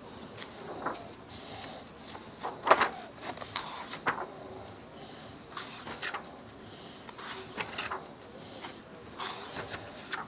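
Pages of a thick printed book being turned and flipped by hand: irregular dry paper rustles and flutters, with the loudest crackle about two and a half seconds in.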